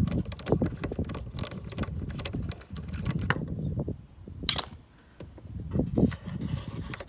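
A screwdriver clicking and scraping on the tail-light cluster's fixing nut, then fingers working the fixing loose: a run of small clicks and taps over a low rumble, with one sharper click about four and a half seconds in.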